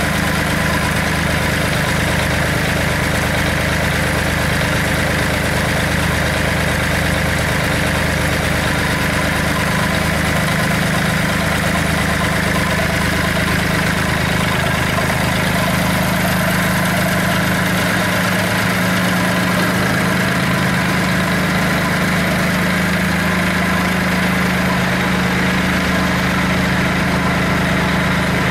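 Yanmar D40 outboard motor running steadily with its cowling off.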